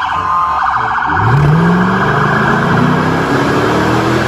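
A police car's siren warbles fast for the first half second. Then a car engine revs up hard, rising steadily in pitch as the car accelerates away.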